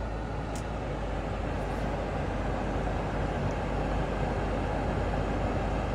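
Steady road and engine noise inside a moving car's cabin, slowly getting a little louder.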